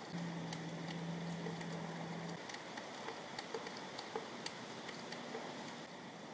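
Steady rain, with scattered sharp drips ticking close by. A low steady hum runs through the first two seconds or so, then stops.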